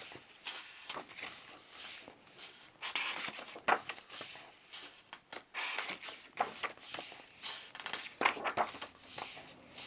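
Pages of a matte-paper booklet turned one after another, about one a second, each giving a short papery swish, with light rustling as the hardcover book is handled.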